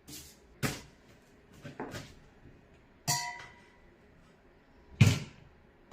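A kitchen cleaver chopping ears of corn into pieces on a cutting board: about five heavy chops at uneven intervals. The loudest comes near the end, and one about three seconds in leaves a brief metallic ring.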